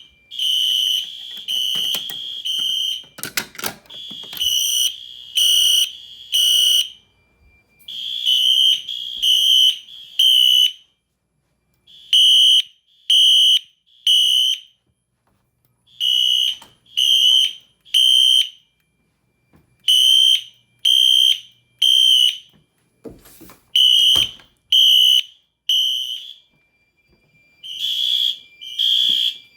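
Fire alarm horns, Wheelock Exceeder remote horns set to code 3 among them, sounding the temporal-three evacuation pattern: three short blasts and a pause, repeating about every four seconds. A few sharp knocks sound a few seconds in and again about two-thirds of the way through.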